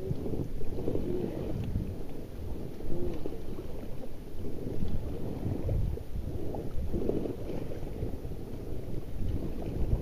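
Wind rumbling on the microphone over the wash of river water around a paddled inflatable raft.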